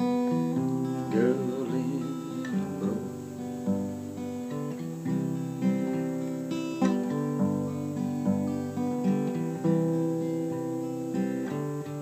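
Steel-string acoustic guitar played alone, picked chords with a fresh stroke about every second, the notes ringing on between strokes.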